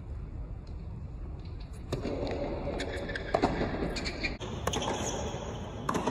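Tennis ball struck by rackets and bouncing on a hard court during a rally, a series of sharp pops about a second apart over a low crowd hum; the loudest hit comes about three and a half seconds in.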